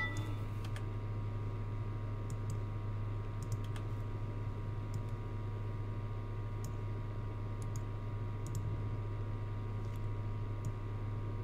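Scattered faint clicks of a computer mouse and keyboard over a steady electrical hum.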